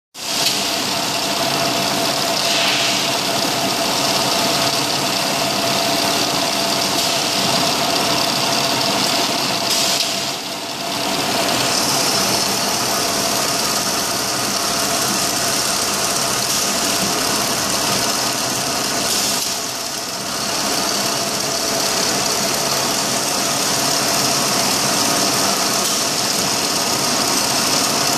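Hydro-pneumatic deep-drilling machine running: its electric motor and drill spindles make a loud, steady mechanical whine and hum. The sound softens briefly twice, about ten and twenty seconds in.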